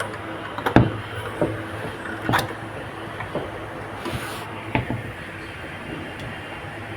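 A sliding door panel being handled and set onto its track by its hanging wheels: a series of irregular knocks and clunks, the loudest about a second in, with a short scrape near the middle.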